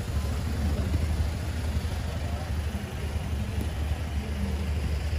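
Steady low rumble of outdoor street background noise, with faint voices in it.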